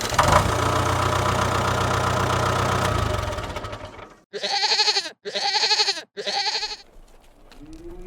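A steady, rough rumbling noise for about four seconds, then three short bleats in quick succession from a goat or sheep.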